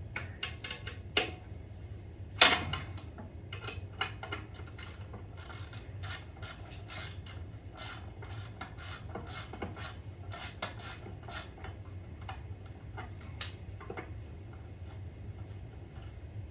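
Hand ratchet clicking in short runs as a small shroud bolt is worked loose, with a louder metallic knock about two and a half seconds in, over a steady low hum.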